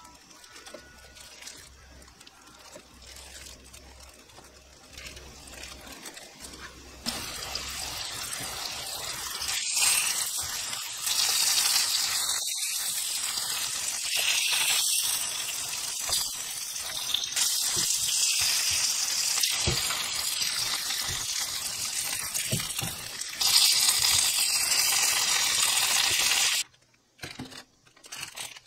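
Curry-powder-coated Spanish mackerel pieces sizzling in hot oil in a frying pan: a steady, loud hiss that starts about a quarter of the way in, with a few light clicks as the pieces are turned, and stops abruptly near the end.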